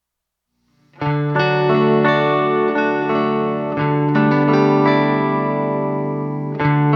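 Instrumental background music with sustained, layered notes, starting abruptly after about a second of silence.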